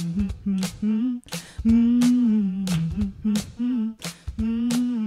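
A single voice humming the low bass harmony line, long held notes stepping and gliding a little in pitch, over a backing track with a steady percussive beat of about two hits a second.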